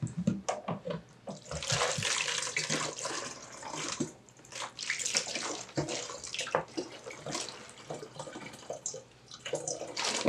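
Water poured from one plastic gallon jug into another, running and splashing in uneven gushes, growing louder about a second and a half in.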